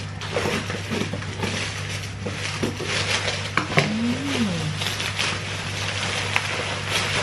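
Plastic bubble wrap crinkling and rustling, with many small crackles and snaps, as it is cut with scissors and pulled off a boxed item. A brief hum of voice comes a little after the midpoint.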